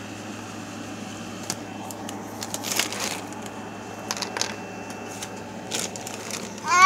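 Hollow plastic ball-pit balls giving a few light, scattered clicks and knocks as a baby shifts among them, over a steady low hum. Just before the end a baby's voice breaks in loudly, wavering in pitch.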